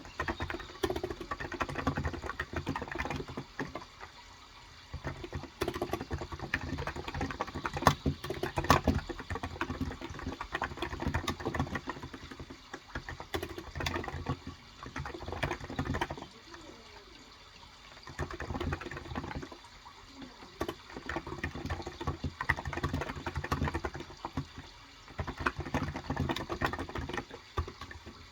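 Typing on a Cox Endeavor 35g electrostatic capacitive (Topre-style) tenkeyless keyboard: fast runs of soft, muted keystrokes in bursts, broken by short pauses several times.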